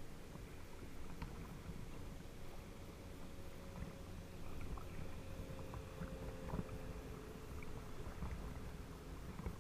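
Water lapping and splashing against a camera housing at the waterline, over a steady low rumble of water and wind on the microphone. Through the middle comes the faint drone of a distant motorboat engine.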